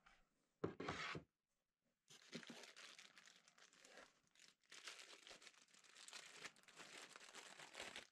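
Plastic packaging bag crinkling and rustling in irregular spells as a power cord is handled and pulled out of it, with a brief louder handling bump under a second in.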